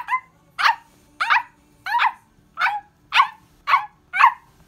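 A child imitating a dog whining for affection from its owner with the voice: a string of short, high, falling whimpers, close to two a second.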